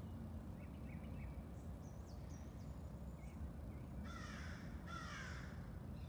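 A crow cawing twice, two harsh calls about a second apart, after faint chirps and thin high notes from small songbirds.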